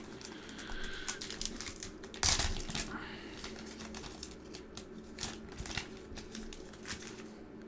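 Foil booster pack wrapper crinkling as it is handled and torn open, with many small crackles and one louder rip a little after two seconds in.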